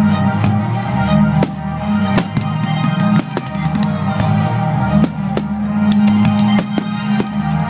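Loud music with drums, played over a fireworks display, with firework bangs and crackles scattered through it.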